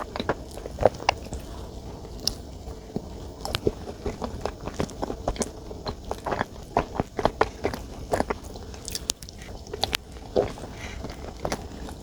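Close-miked eating sounds: chewing and biting into soft chocolate dessert, with irregular wet mouth clicks and smacks several times a second.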